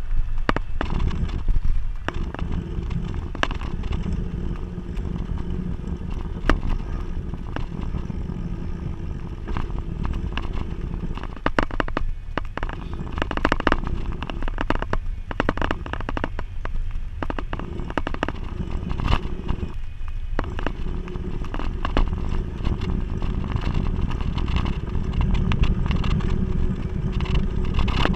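Wind buffeting and road rumble on a bike-mounted camera while riding along a road, with frequent clicks and rattles from bumps and the mount.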